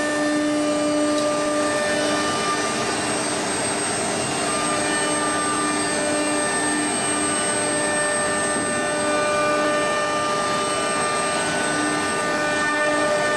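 CNC router machine running steadily: a high spindle whine over a loud, even hiss, the whine swelling and easing at times.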